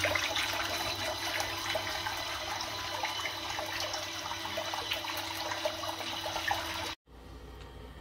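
Portable mini turbo washing machine running submerged in a sink of water: its spinning impeller churns and splashes the water over a steady motor hum. The sound cuts off abruptly about seven seconds in, leaving a quieter low hum.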